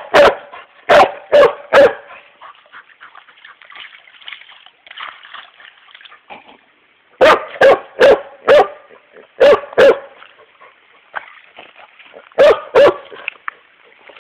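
A dog barking in three bouts, about a dozen barks in all, with quiet gaps of several seconds between the bouts. It is barking at a rock at the water's edge.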